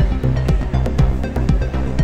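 Electronic background music with a steady beat of about two strokes a second over heavy bass.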